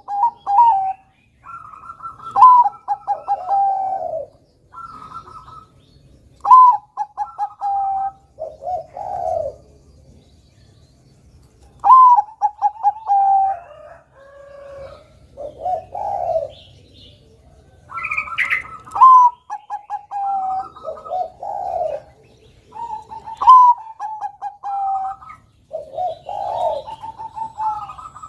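Zebra dove (Bangkok-strain perkutut) cooing in its song ('manggung'). Each phrase is a quick run of stuttering coos stepping down in pitch, ending on a lower coo, repeated every two to three seconds. A higher, flatter stuttering coo overlaps some of the phrases.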